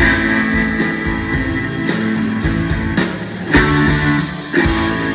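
Live rock band playing an instrumental passage: electric and acoustic guitars holding chords over bass, with drum hits marking the beat.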